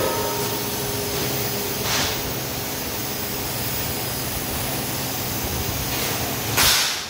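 CNC laser cutting machine cutting steel plate: a steady hiss of the cutting head's gas jet and the machine running, with two brief louder surges, about two seconds in and near the end.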